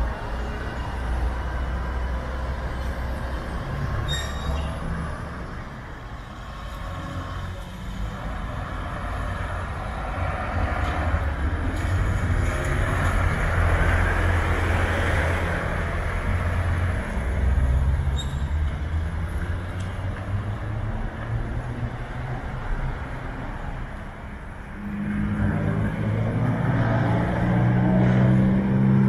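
Diesel city buses running and moving through a bus terminal: a steady low engine rumble, with a broad rushing swell near the middle and a couple of short clicks. About 25 seconds in, a louder low drone with several steady tones sets in.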